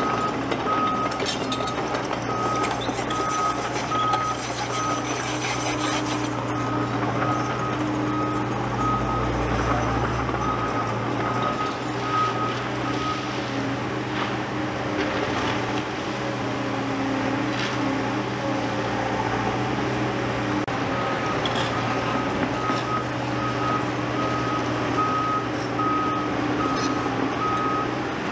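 Reversing alarm of a heavy machine on a construction site, beeping at a steady even pace over a running diesel engine; the beeping stops about halfway through and starts again later.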